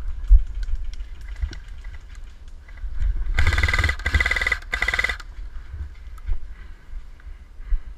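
Airsoft rifle firing three quick full-auto bursts at close range, back to back, lasting about two seconds in all. Scattered clicks and a low rumble of wind and handling run underneath.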